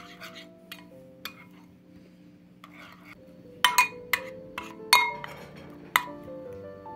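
A metal utensil stirring a thick sauce in a glass bowl, clinking against the glass: scattered sharp clinks, the loudest and most frequent in the second half, with soft swishing between them. Background music plays underneath.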